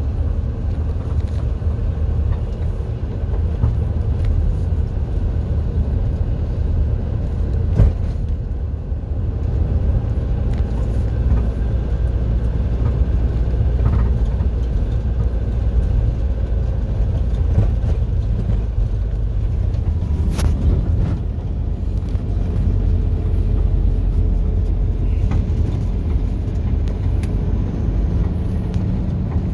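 Steady low rumble of a moving road vehicle, with a single knock about eight seconds in.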